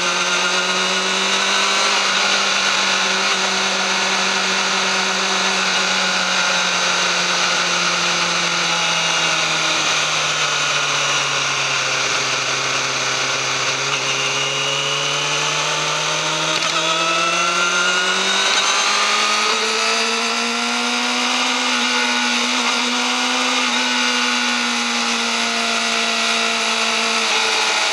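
Yamaha YZF-R6's inline-four engine with its stock exhaust, running at steady mid revs. The pitch sinks slowly to its lowest a little before halfway, then climbs and holds a bit higher than at the start.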